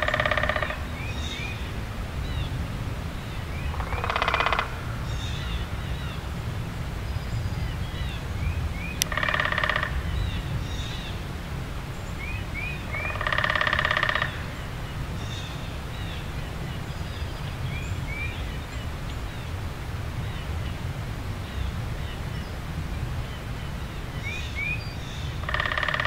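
Outdoor field recording of many birds chirping and singing, with a louder call about a second long repeating every four to five seconds, over a steady low rumble.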